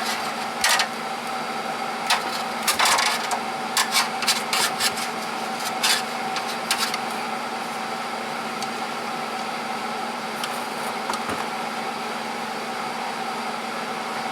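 Short wooden knocks and scrapes from a board being handled, about a dozen in the first seven seconds, over a steady background hum.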